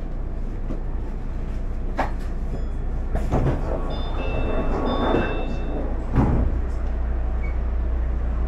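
Tokyo Monorail train standing at a station with its doors opening: a steady low hum from the train, a few knocks as the doors and platform screen doors slide open, and a short electronic chime of high tones about four seconds in.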